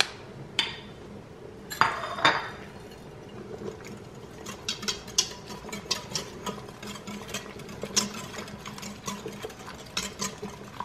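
A wire whisk clicking rapidly against the stainless steel inner pot of an Instant Pot, whisking cubes of cream cheese into hot juices to make a cream sauce. First come a few separate knocks as a wooden spoon scrapes the cream cheese off a glass dish into the pot.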